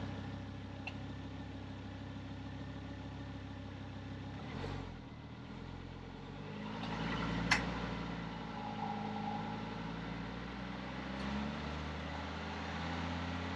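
Volvo C30's engine idling steadily, its note shifting slightly about five to seven seconds in, with one sharp click about halfway through.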